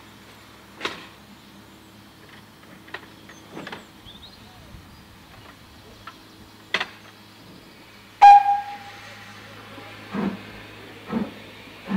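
A few sharp metallic clunks from a railway ground frame's levers being worked. A little past halfway, a short whistle toot from BR Standard 4MT 2-6-4 tank engine 80104, then steam hissing and its first exhaust beats, about one a second, as it starts away.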